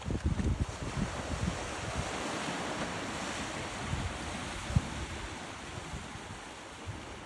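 Sea waves breaking and washing up the beach, the surf swelling about two to four seconds in. Wind buffets the microphone in low thumps, heaviest in the first second and once more near five seconds.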